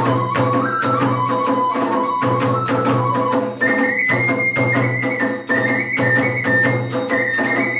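Iwami kagura festival music: a bamboo flute plays a high melody, jumping up an octave about three and a half seconds in, over quick, dense strokes of drums and small hand cymbals.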